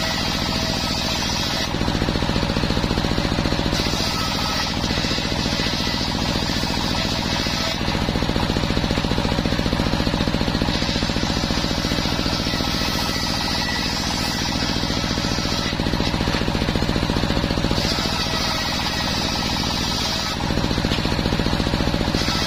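Homemade circular sawmill driven by an engine running steadily, its blade ripping planks of waru wood. The higher cutting hiss comes and goes about four times, each cut lasting a few seconds, with short gaps where the blade spins free between planks.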